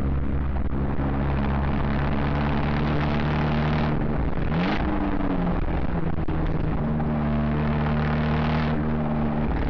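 Abarth 124 Spider's turbocharged 1.4-litre four-cylinder engine and exhaust running at a steady cruising note, with a brief rise and fall in pitch about halfway through. The external microphone is badly clipped, so the sound is distorted.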